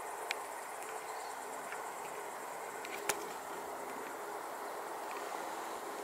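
Steady outdoor evening ambience with faint insect chirring, broken by two small clicks, one just after the start and one about halfway through.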